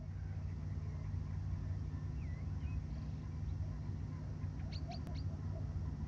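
Night ambience: a steady low rumble with faint, scattered bird calls over it, short chirps and glides. A brief cluster of sharp clicks comes about five seconds in.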